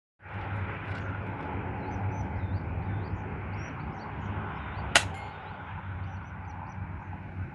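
Outdoor ambience: a steady rushing noise with small birds chirping high above it, and one sharp click about five seconds in.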